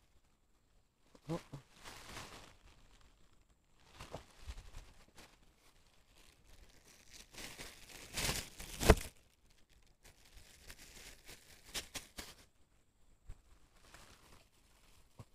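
Thin clear plastic bag crinkling and rustling as it is handled close to the microphone, in several separate bursts, the loudest a sharp crackle about nine seconds in.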